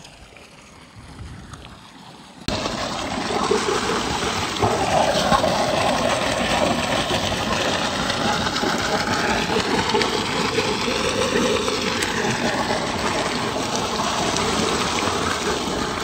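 Water from a solar-powered pump gushing out of a pipe into a pool as it fills: a steady rushing that starts suddenly about two and a half seconds in, after a quiet start.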